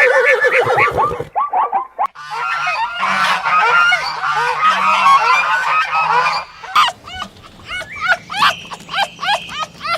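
A flock of domestic waterfowl calling over one another in many short, overlapping honks. The sound breaks off suddenly about two seconds in and again near seven seconds; after the second break the calls come more singly.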